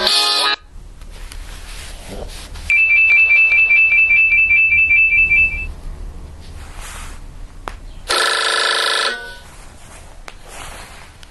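Nokia 6124 classic mobile phone ringtones playing through the phone's loudspeaker: a musical tone breaks off about half a second in, then a high, rapidly pulsing electronic ring sounds for about three seconds. Near the end, a short musical snippet plays for about a second.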